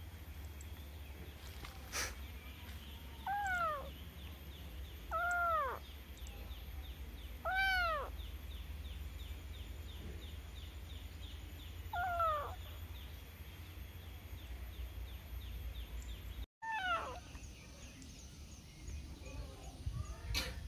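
Kitten meowing: five short, high mews, each one arching up and falling in pitch, spaced a few seconds apart.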